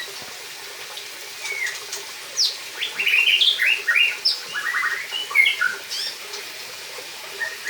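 A songbird singing a varied song: sharp falling whistles, then from about three seconds in a rapid run of quick chattering and whistled notes lasting a few seconds, then a few scattered whistles.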